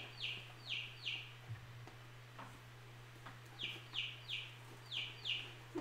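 Baby chicks peeping: short, high, downward-falling peeps, a quick run of four, then after a pause of about two and a half seconds a run of five.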